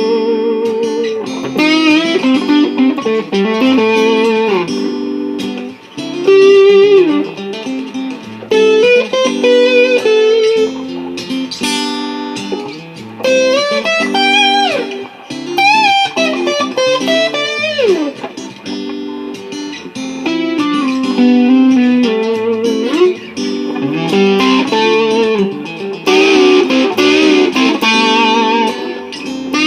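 Guitar music: a looped Martin JM-OM acoustic guitar part played back by a Ditto looper pedal, with a Fender Cabronita electric guitar soloing over it. The solo uses bent notes, most plainly in the middle stretch.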